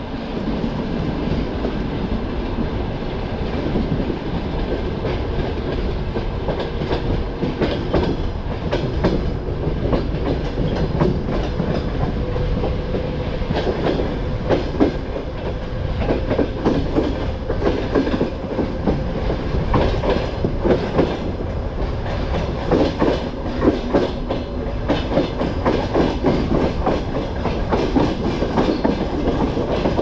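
Passenger coach wheels clicking and knocking over rail joints and switches as the train runs through a station yard, heard from the coach window over a steady rolling rumble. The knocks come in irregular clusters that grow denser from about eight seconds in, and a faint steady whine runs under them through the middle.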